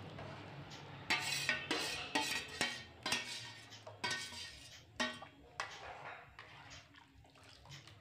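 Steel spoon stirring thin buttermilk and gram-flour batter in a metal kadhai, scraping and clinking against the pan in irregular strokes. The strokes come mostly in the first six seconds and thin out near the end.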